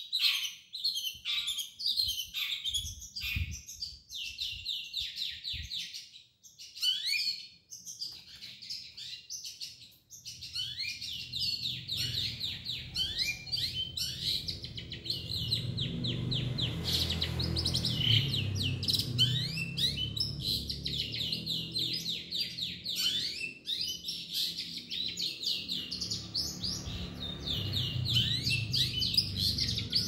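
Caged long-tailed shrike (cendet) singing a fast, chattering run of chirps, with short pauses. A low hum comes in underneath about a third of the way through.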